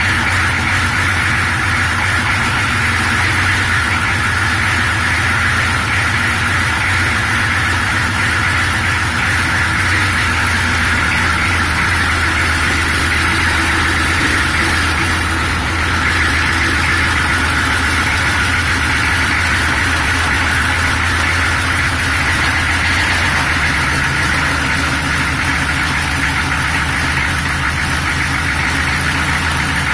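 GM 6.5-litre turbo-diesel V8 idling steadily on its first run, unloaded with no torque converter fitted. It idles low because the throttle bracket is not yet fitted, and runs rough, which the owner puts down to air in the freshly rebuilt fuel system and the Sea Foam and injector cleaner left in the lines.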